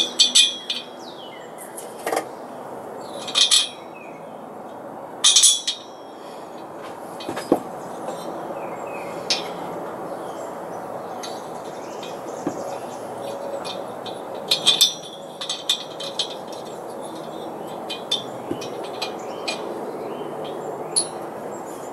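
Metal clinks and knocks as the finned aluminium cylinders and head of a two-stage air compressor pump are handled and fitted onto the crankcase, coming in irregular clusters of short taps over a steady background hiss.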